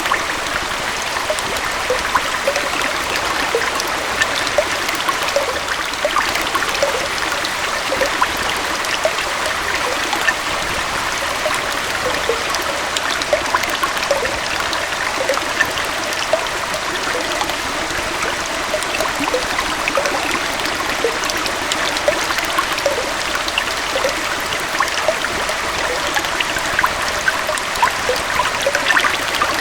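Small forest waterfall and stream flowing steadily, an even rush of water with many small splashes and gurgles.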